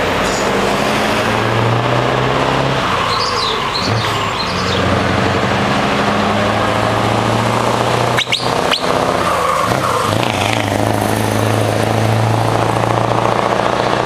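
Scania 164L 580's V8 diesel truck engine accelerating past with other trucks, a steady low engine note that breaks off briefly twice as it changes gear.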